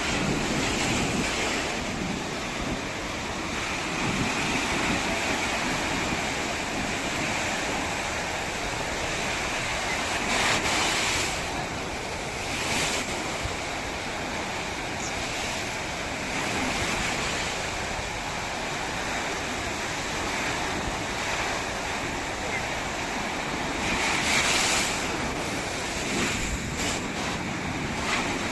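Ocean surf washing steadily onto a sandy beach, with wind blowing across the microphone.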